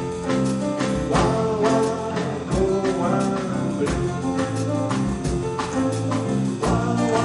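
Live band playing a guaguancó-and-blues number: a steady bass line under regular percussion strokes, with sustained pitched instrument or vocal notes above.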